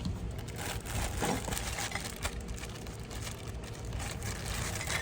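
Light clicks and knocks of the new angle grinder's parts and box being handled, over a steady low rumble.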